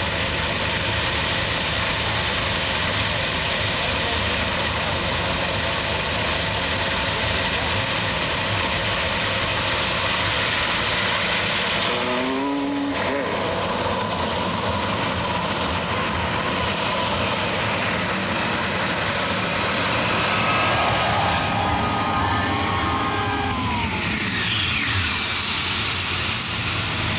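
Modified pulling tractor's engine running hard under load as it pulls the weight sled down the track, a loud steady roar with a high whine slowly rising in pitch. Near the end several whines fall away as the run finishes.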